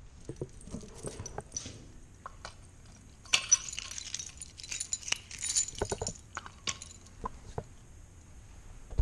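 A bunch of metal keys jangling and clinking as they are shaken in the hand. The jingling is densest and loudest from about three to six and a half seconds in, with scattered single clinks before and after.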